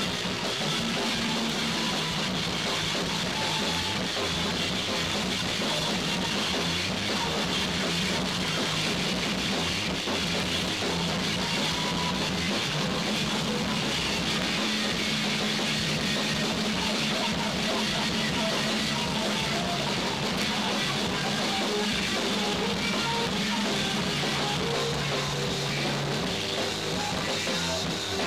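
Loud noise-rock: distorted guitars and drum kit in a dense, unbroken wall of sound, with held low notes that shift in pitch now and then.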